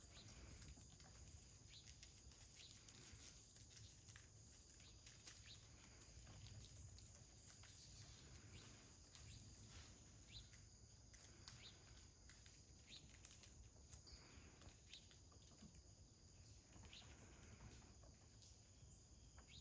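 Near silence: faint outdoor ambience with a low steady hum, a thin high insect-like drone and scattered faint ticks.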